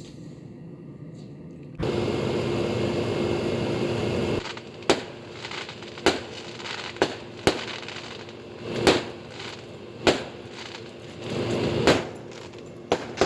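Fireworks going off: a run of about nine sharp bangs spread over eight or nine seconds, some followed by a short crackling tail. From about two seconds in, a steady outdoor hum with a low tone sits underneath, loudest just before the bangs begin.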